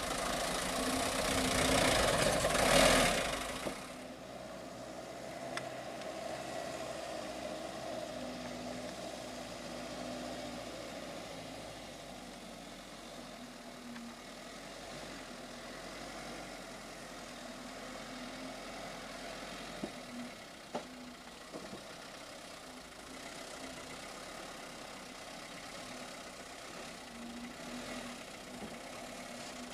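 The diesel engine of a cassava-laden light truck running at low speed as it crawls through deep muddy ruts. It is loud for the first few seconds, then drops to a steady low drone with a low hum. A couple of faint knocks come about two-thirds of the way through.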